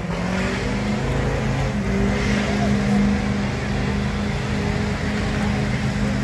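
Diesel pickup truck engine held at high, steady revs under full load during a truck pull, a continuous drone with only slight wavering in pitch.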